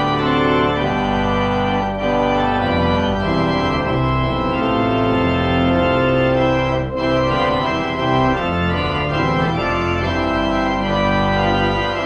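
Organ playing slow, sustained chords that change every second or so, a brief instrumental interlude between parts of a church service.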